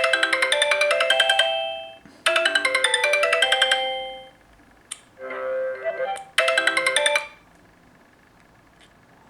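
Sony Xperia P stock ringtone playing: a bright electronic melody of quick, repeated notes in short phrases, ending about seven seconds in.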